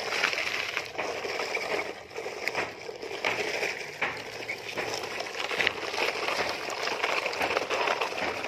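Coarse gravel crunching and crackling, with scattered small clicks.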